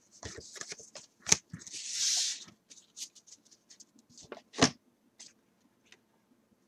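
A stack of paper baseball trading cards being handled: cards sliding against each other in a short rustle about two seconds in, with scattered light clicks and sharp taps as the stack is set down and squared on the table, the loudest tap a little past halfway.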